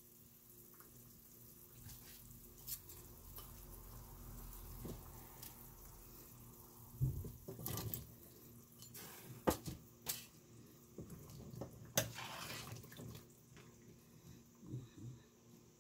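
Chicken broth simmering in a stainless steel pot, with a ladle stirring and clinking against the pot. About seven seconds in, chunks of papaya are tipped from a bowl into the liquid with splashes and a run of sharp knocks.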